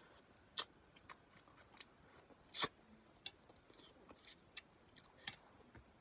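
Close-up mouth sounds of someone chewing a fingerful of rice and fish curry: scattered short, sharp wet smacks and clicks, the loudest about two and a half seconds in.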